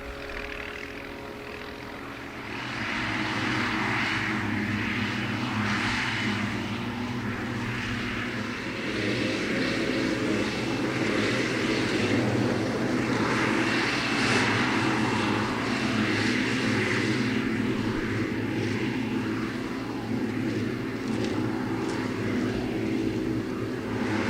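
Heavy diesel farm machinery working silage: engines running steadily under load, with a rushing, hissing noise that swells and fades every few seconds. The sound grows louder a couple of seconds in and heavier about a third of the way through.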